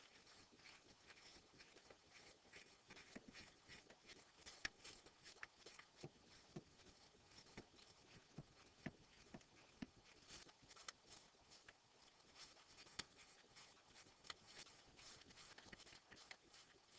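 Faint, irregular clicks and scratches of a small Torx screwdriver turning out the tiny screws of a Nokia N73 phone.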